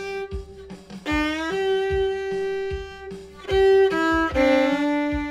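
Solo fiddle playing a simple bluegrass melody in long bowed notes, sliding up into a note on the chord change about a second in.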